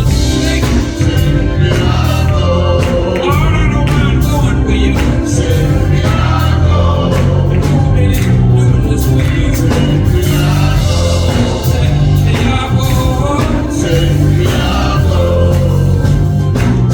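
Gospel music with singing over a steady, heavy bass line and drums.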